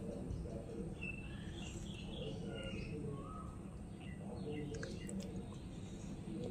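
Small birds chirping in short calls over a steady low background rumble.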